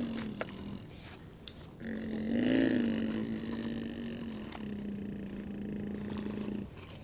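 Small electric motor of a radio-controlled construction model running with a steady whine, swelling and rising in pitch briefly about two seconds in, then cutting off near the end, with a few light clicks.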